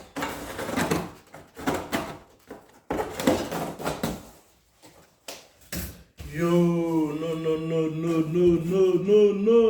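Cardboard box being opened and its packaging handled: a run of rustling, scraping and knocking bursts. About six seconds in, a man starts humming or singing a long held note that wavers slightly in pitch.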